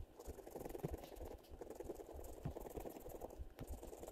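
A coin scratching the coating off a paper scratch-off lottery ticket: faint, quick, irregular rasping strokes.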